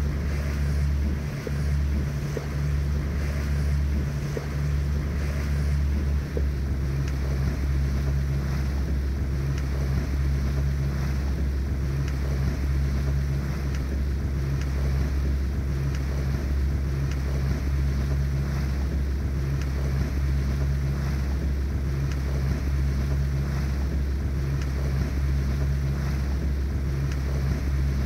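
A small inflatable boat under way: a steady low engine drone, with wind buffeting the microphone and water rushing along the hull.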